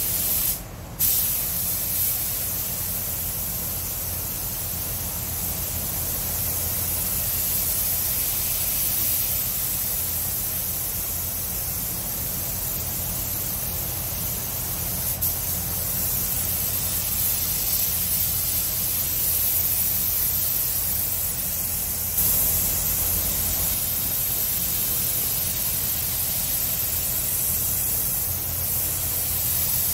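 A compressed-air paint spray gun (DeVilbiss, 1.4 tip) spraying paint, giving a steady hiss over a low hum. The hiss cuts out briefly about a second in.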